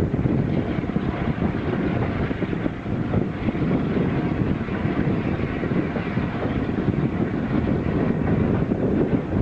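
Steam-hauled train running, a steady dense noise without distinct beats, with wind on the microphone.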